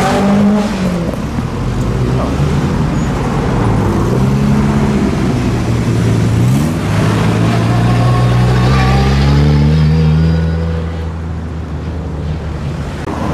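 Car engines accelerating away, the engine note rising and dropping with gear changes, then one long pull from about six to ten seconds in that fades as the car moves off.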